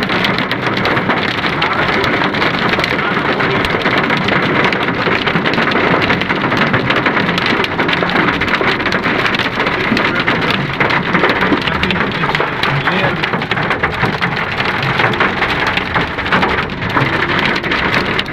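Hailstorm with heavy rain pelting the road and cars: a steady, dense patter of countless small impacts.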